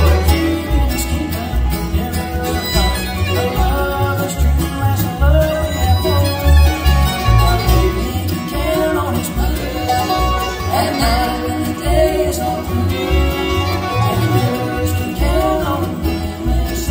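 Live bluegrass band playing an uptempo tune, with fiddle, banjo, mandolin, acoustic guitars and upright bass; the fiddle stands out in front while the bass keeps a steady beat.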